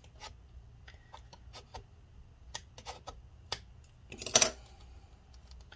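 Hands working over the bare aluminium top case of an opened MacBook Pro, clearing old battery adhesive: scattered light clicks and taps, with one louder short scraping rub about four seconds in.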